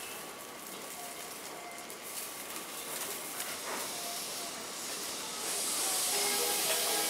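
A commuter electric train at the platform letting off a hiss of air, which swells into a loud rush of air about five and a half seconds in. Around six seconds in, a platform chime melody starts up over it.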